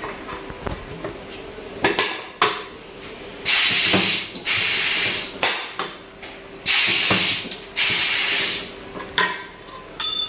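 Pneumatic punching unit on an aluminium-profile press cycling: four loud bursts of compressed-air hiss in two pairs as the cylinder strokes, with sharp metallic clicks and clunks before and after as the profile is set and the tool strikes.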